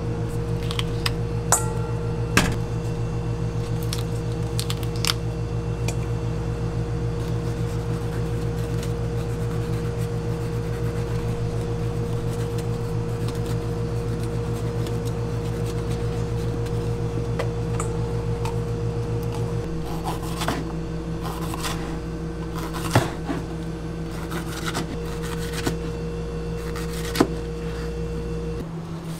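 Steady low hum of commercial kitchen equipment, with scattered sharp clicks and taps from a knife cutting vegetables and knocking a plastic cutting board. Part of the hum drops out about two-thirds of the way in, and another tone stops near the end.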